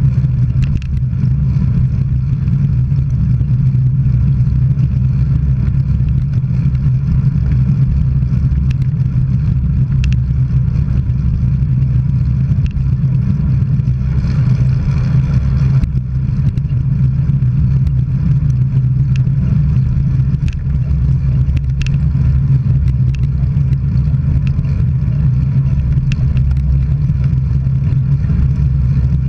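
Steady low rumble of wind and road noise from a camera travelling along a road, with a few faint ticks.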